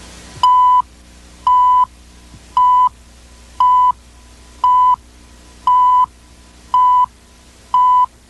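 Countdown beeps on a commercial's videotape leader: eight short tone beeps of the same pitch, one each second, marking the seconds of the slate countdown before the spot starts.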